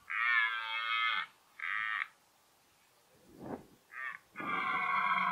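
Red deer stag roaring, the rutting call. There is a long roar of about a second, a shorter one, a few faint grunts, and then another long roar near the end.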